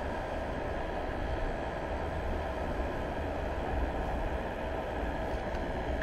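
Steady mechanical hum with a constant whine over a low rumble and a rushing-air hiss.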